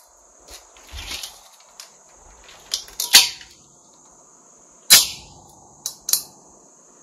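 Gunshots at irregular intervals, about seven reports in all, the two loudest about three and five seconds in, each with a short echo.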